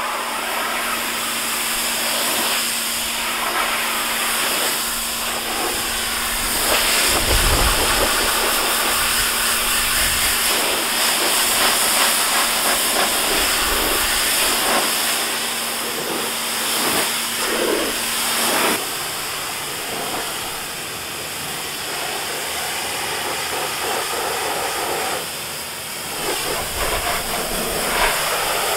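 Stanley pressure washer spraying a jet of water onto a car's paint and glass, a steady loud hiss while the car is rinsed down. A steady hum runs under the spray and stops about two-thirds of the way through.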